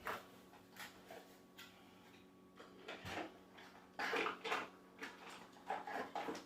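Scattered handling noises: short clicks, clatters and rustles as bike pedals and parts are picked up and moved about, busiest from about four seconds in.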